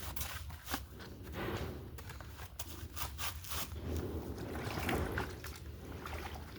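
Laundry being washed by hand in water: irregular splashing and sloshing with scrubbing and sharp little clicks, swelling twice.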